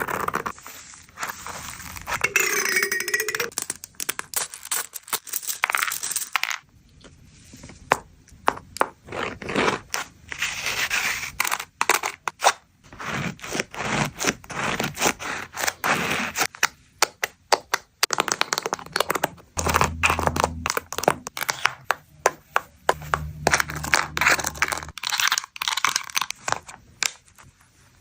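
Small fidget toys on a handmade fidget board being clicked, flicked and slid one after another: a long irregular run of sharp clicks, rattles and scrapes. A brief wavering tone sounds about three seconds in, and a low hum comes twice in the second half.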